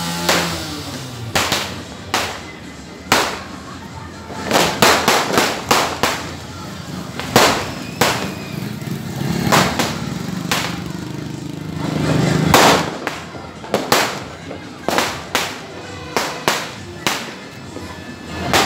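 Firecrackers going off in the street: an irregular string of many sharp bangs, some in quick clusters and some spaced out, with the loudest about two-thirds of the way through.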